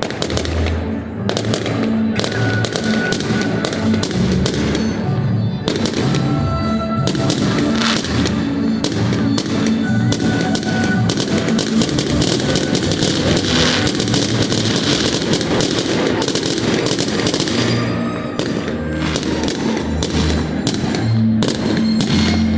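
Fireworks going off in a dense, unbroken barrage of bangs in quick succession, with music playing underneath.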